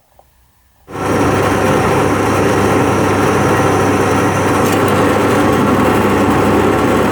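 A handheld electric power tool switches on about a second in and runs steadily at full speed, its motor hum under a loud, even hiss.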